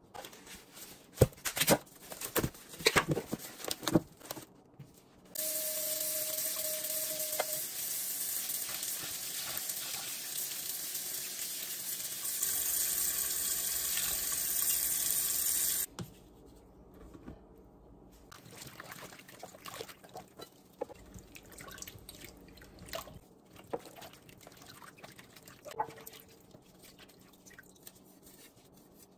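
Water running into a stainless steel sink onto raw chicken for about ten seconds, the sound steady and even. Before it come scattered small clicks and knocks, and after it come soft splashes and rubbing as the chicken is handled in the water of the sink.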